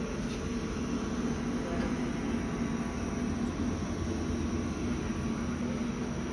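Steady hum of running lab machinery: an even rumble with a constant low drone, unchanging throughout.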